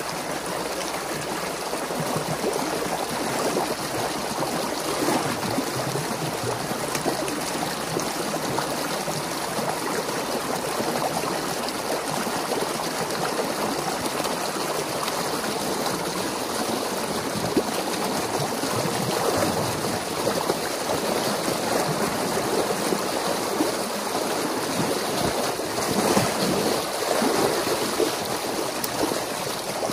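Water gushing steadily through a breach torn in a beaver dam, a continuous churning flow as the dammed stream drains out through the gap.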